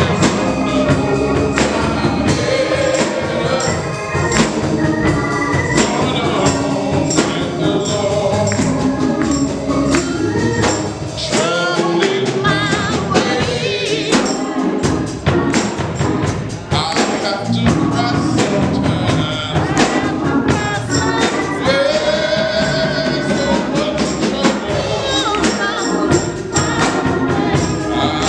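Gospel music: a choir singing with a band, a tambourine shaking and striking on the beat.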